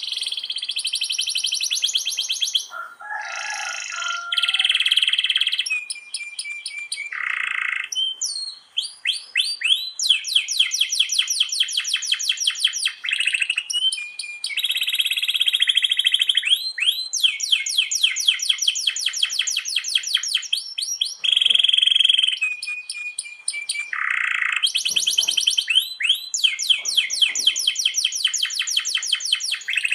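Domestic canary singing a long, unbroken song of rolls: rapid repeated notes strung into trills several seconds long, alternating with steady buzzy and whistled passages.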